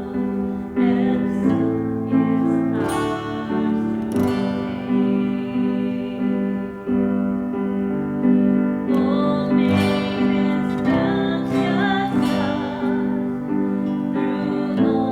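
Slow music on acoustic guitar with keyboard, chords struck in a steady, even pulse.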